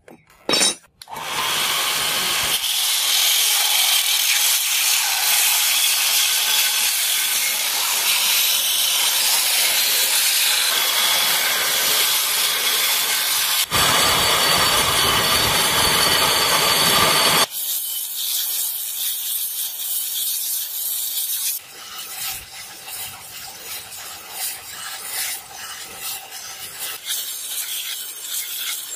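A belt grinder's abrasive belt grinding a hand-forged iron blade blank, taking the black forge scale off the steel. The grinding starts about a second in after a couple of knocks and runs loud and steady. About halfway through it turns quieter and more uneven.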